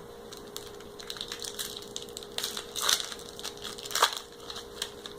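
Trading card booster pack's foil wrapper being torn open and crinkled: a run of crackles, with two louder tears about three and four seconds in.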